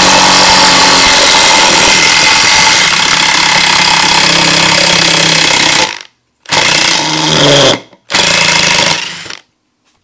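Ryobi P1870 18V cordless impact driver hammering loudly as it backs a long screw out of a wooden board: one long continuous run, then two shorter bursts of about a second each near the end.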